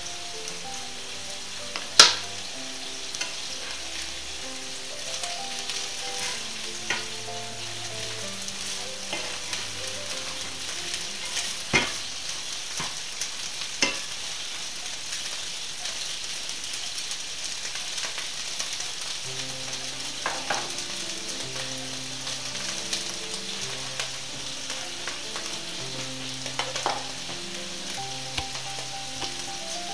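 Fried potatoes and meat patties sizzling steadily in frying pans, with a spatula knocking and scraping in the pan a few times, loudest about two seconds in. Faint background music underneath.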